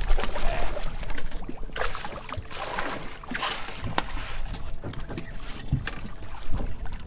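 Wind and water noise aboard an anchored small boat, with scattered knocks and splashes throughout.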